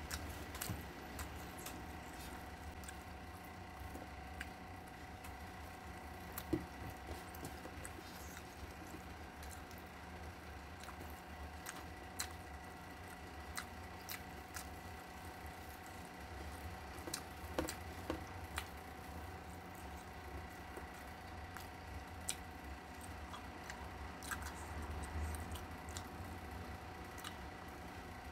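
Quiet eating sounds: chewing and wet mouth noises, with scattered small clicks of fingers picking rice off a stainless steel tray, over a steady hum.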